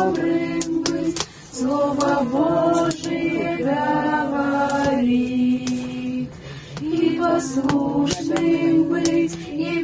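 A small group of girls and young children singing a children's hymn together without accompaniment, in held, even notes.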